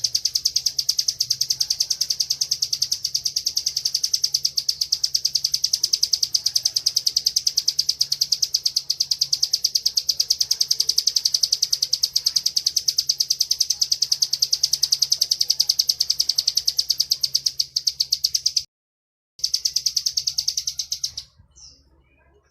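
Bar-winged prinia (ciblek) singing its 'ngebren' song: a long, rapid, evenly repeated trill of high notes. It breaks off once for under a second near the end, resumes briefly, then stops.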